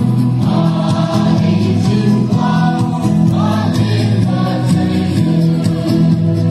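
Music with several voices singing together over steady, sustained low chords, in a choir or gospel style.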